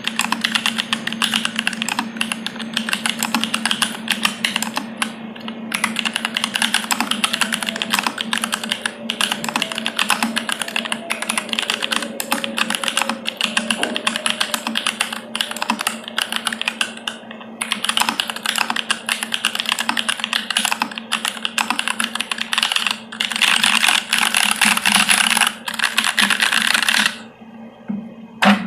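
Continuous fast typing on a dyz40 mechanical keyboard with stock Jwick T1 tactile switches on an FR4 plate, no case dampener, and ABS cherry-profile keycaps: a dense run of keystroke clacks that grows busier near the end, then pauses briefly. A low steady hum sits underneath.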